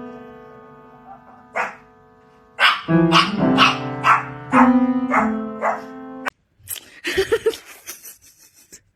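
A dog barking several times in short sharp calls over background music of held plucked-string notes. The music cuts off suddenly about six seconds in, and a few seconds of short, irregular scuffling noises follow.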